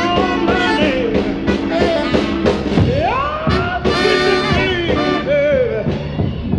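Music: a bluesy rock song with singing over a band, including a long rising sung or slide note about halfway through.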